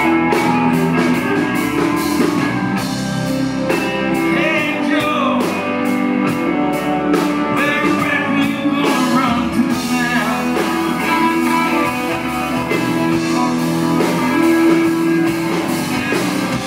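Live rock band playing: electric guitars, bass and drums, with a male voice singing lead.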